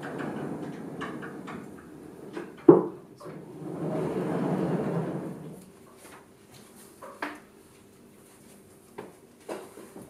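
Lecture-hall sliding chalkboard panels being moved: a loud knock a little under three seconds in, then about two seconds of rumbling as a panel slides along its track, followed by a few light knocks.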